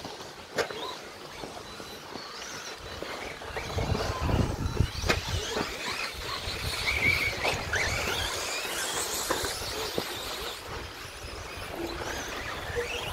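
Electric 2WD RC stadium trucks racing on a dirt track: thin motor whines rise and fall as the trucks speed up and slow down, with scattered sharp clacks of the trucks hitting the ground.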